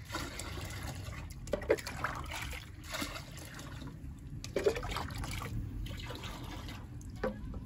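Liquid being scooped with a plastic cup from a large pan and poured into a bucket in several separate pours, splashing and trickling. This is the water being drawn off cassava starch (polvilho) that has settled to the bottom of the pan.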